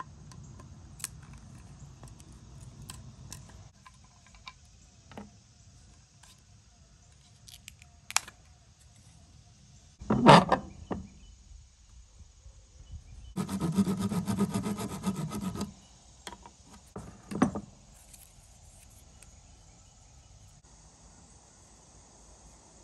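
Hand tools at work on a rifle's wooden stock and fittings: small clicks and taps of a screwdriver and metal parts, then a sharp knock about ten seconds in. About two seconds of fast, even file strokes follow, then another knock.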